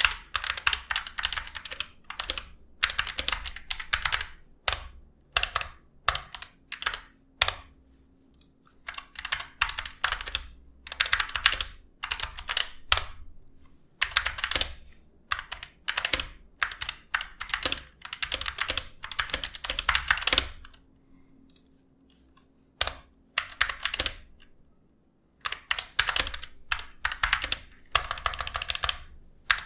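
Typing on a Gamakay MK61 60% keyboard with Gateron yellow optical switches and pudding keycaps: rapid runs of keystroke clacks in bursts with brief pauses between them.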